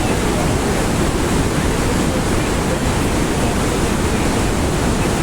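The Rhine Falls: a loud, steady rush of falling water that never lets up.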